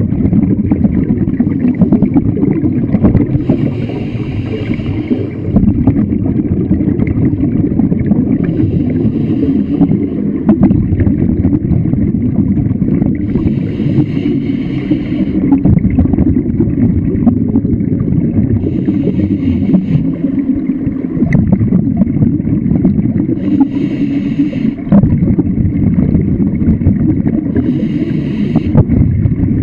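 Scuba diver breathing through a regulator underwater: a short airy hiss every four to five seconds, over a steady low rushing of water noise.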